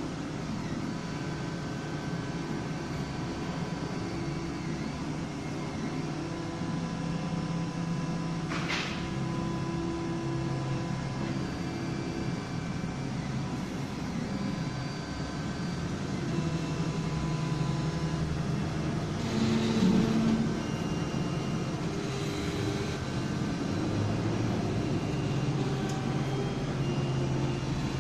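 Large 3D printer running: its stepper motors whine at low tones that shift in pitch every second or two as the print head changes moves, over a steady hum. A short hiss comes about nine seconds in, and a louder rush around twenty seconds in.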